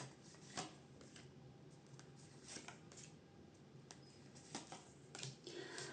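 Faint soft clicks and rustles of tarot cards being handled and laid down, a few scattered taps against near silence.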